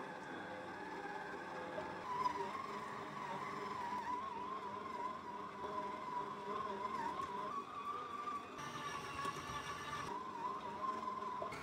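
Electric stand mixer motor running steadily with a whine as its dough hook kneads dough in a stainless steel bowl. About two seconds in the motor speeds up, and the whine rises a little in pitch and gets louder.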